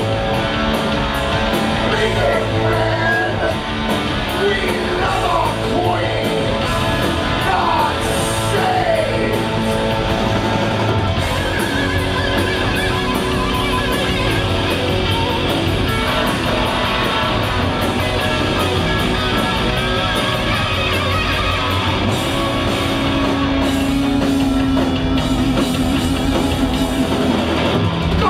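Live rock band playing loudly: electric guitars, bass and drums, with a lead guitar sliding and bending notes during the first several seconds.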